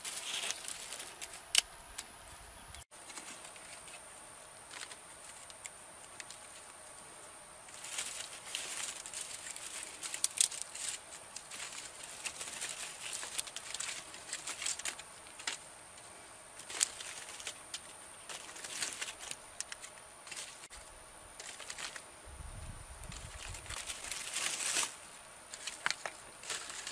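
Dry sticks and twigs being picked from a pile and laid over a tinder bundle in a fire pit: irregular snaps, clicks and light clatter of wood on wood, over a steady high-pitched tone.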